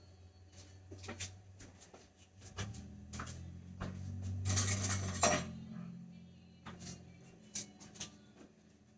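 Kitchen utensils and dishes clinking and clattering, with a burst of louder clatter about halfway through, over a low hum.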